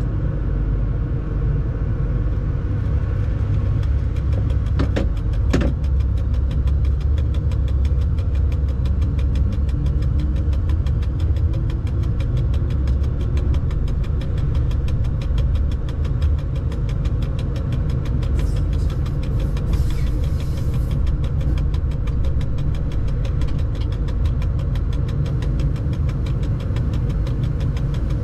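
Freight locomotive running in its cab: a steady low rumble with a fast, even ticking throughout, and two short clicks about five seconds in.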